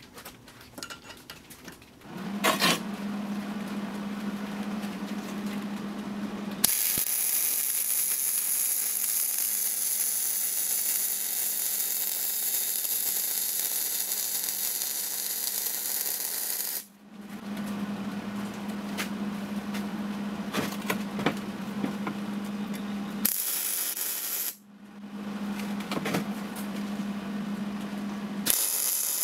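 MIG welder butt-welding the sleeved joint of a steel tube drop axle. The arc crackles and hisses in long runs starting about two seconds in, with two short breaks between beads, over a steady low hum.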